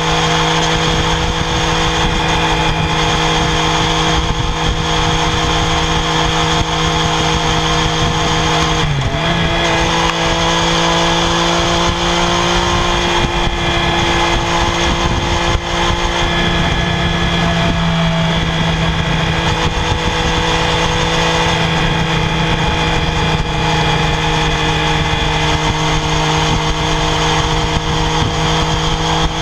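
Triumph Daytona 675R's 675 cc inline three-cylinder engine running loud and steady at high rpm through its stock exhaust, with a brief quick dip in revs about nine seconds in before it settles back.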